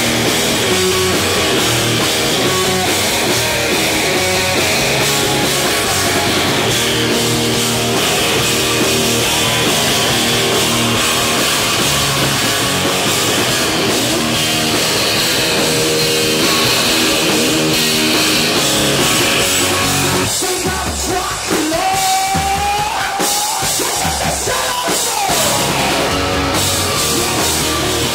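Rock band playing live: distorted electric guitar, bass guitar and drum kit, with singing. About twenty seconds in, the music drops to a sparser, quieter passage with one sliding note, then the full band comes back in near the end.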